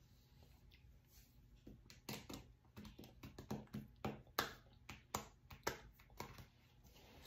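A run of irregular soft clicks and taps close to the microphone, several a second, starting about two seconds in.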